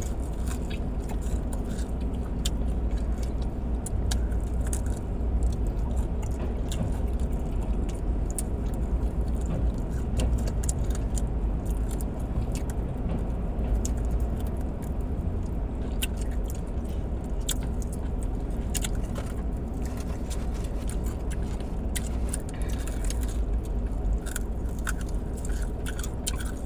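Crispy fried chicken wings being bitten and chewed, with many scattered sharp crunching clicks, over a steady low rumble.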